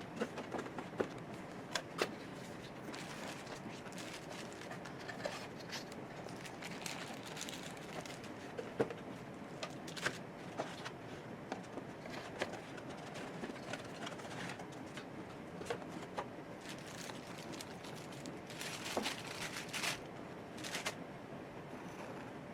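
Hands handling and unpacking camera packaging: irregular rustles, small clicks and light knocks, over a steady background hiss.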